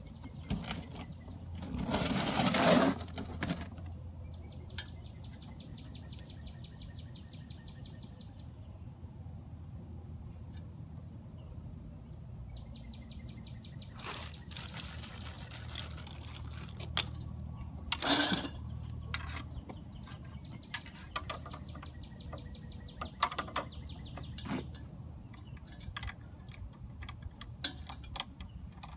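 Handling noises from assembling an electric tiller: a loud rustle about two seconds in, a sharp knock past the middle, and scattered small clicks and clinks of parts. Behind them a bird sings a rapid, even trill three times, each about three seconds long.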